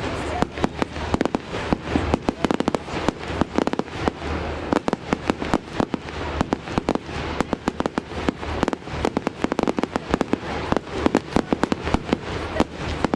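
Fireworks display: a rapid, near-continuous barrage of sharp bangs and reports, several a second, over a low rumble.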